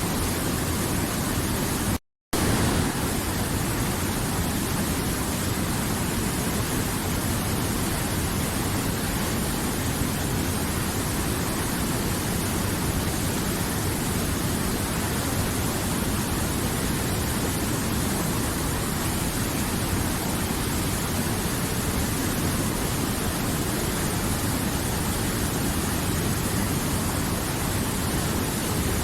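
River water flowing, a steady rushing sound. The sound cuts out completely for a split second about two seconds in, then resumes unchanged.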